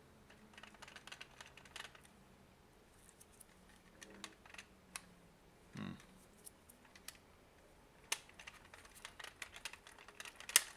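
Light, scattered clicks and taps of plastic and metal parts as a JAKEMY JM-Z13 phone screen-opening clamp is handled, with sharper clicks about 8 s in and near the end.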